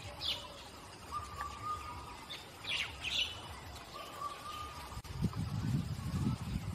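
Forest birds calling: a few sharp high chirps and two held, even whistled notes. In the last couple of seconds, low rough rumbling sounds come in underneath.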